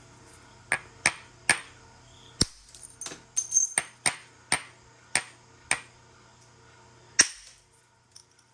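Pieces of chert knocking and clinking against each other: about a dozen sharp, ringing clicks at irregular intervals, the loudest near the end.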